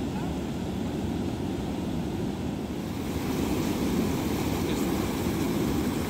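Steady rush of white water pouring over a low river weir, louder from about three seconds in.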